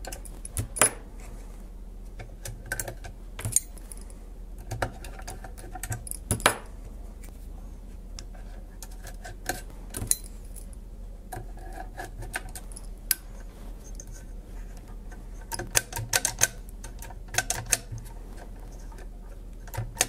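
Irregular small clicks, taps and knocks of metal parts as a vintage Turner desk microphone's metal base is handled and screwed back together.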